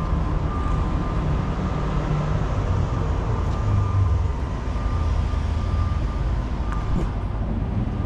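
Steady low rumble of outdoor background noise with a faint, steady high tone over it and a couple of small clicks.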